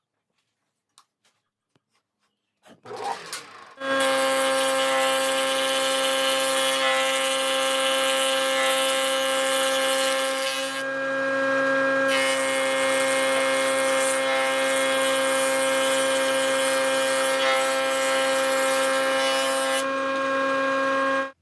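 An electric power tool starts about four seconds in and runs at a steady pitch under a strong hiss, with a brief easing of the hiss about eleven seconds in. It stops just before the end.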